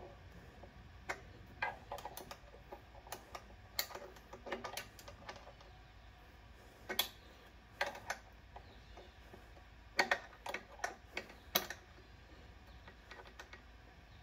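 Wrench supplied with the workbench casters clicking against the axle nut and the steel caster mounting bracket as the nut is tightened by hand, in short irregular clicks, some in quick pairs.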